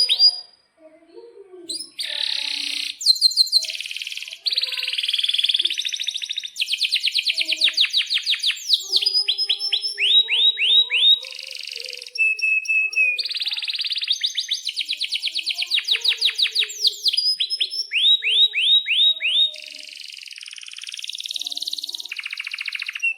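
Domestic canary singing a long, continuous song that starts about two seconds in. Phrases change every second or two, moving between rapid trills of quick falling notes, buzzy rolls and short whistled notes.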